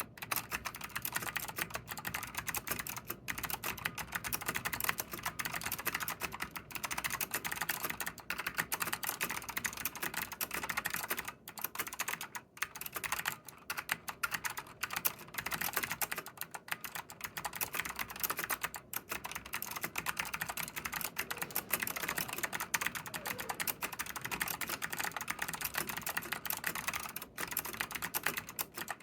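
Fast continuous typing on a vintage NTC KB-6251EA keyboard with clicky Alps blue switches: a dense stream of sharp key clicks, broken by a few brief pauses.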